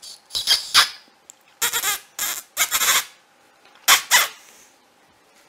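Pug puppy giving short, shrill, squeaky yaps in three quick bunches: two, then three, then two.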